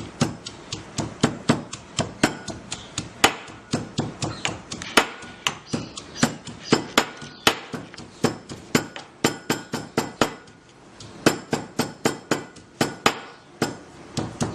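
Fresh mint leaves being pounded by hand with a pestle: a steady run of sharp knocks, about three a second, with a brief pause about ten seconds in.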